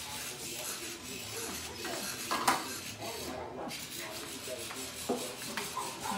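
Walking toy monkey clattering across a tile floor, with a sharp knock about two and a half seconds in and a smaller one about five seconds in.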